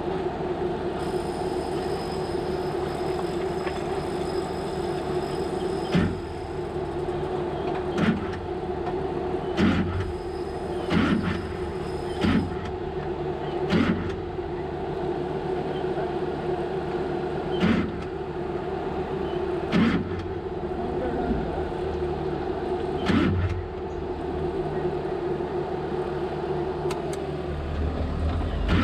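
Ultra4 off-road race car's engine idling steadily, heard from inside the cockpit, with about nine sharp knocks at irregular gaps of one to four seconds. Near the end the steady note stops and a deeper rumble builds.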